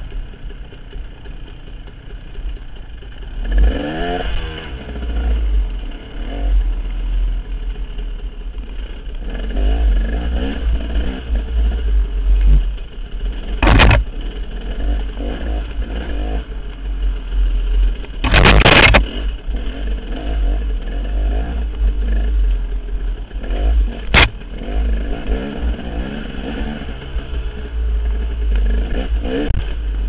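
Two-stroke dirt bike engine revving up and down over and over as it rides a rough trail, over a steady low rumble. Three sharp clunks and clatter from the bike hitting the rocky ground come through the middle stretch, the second one longer and the loudest.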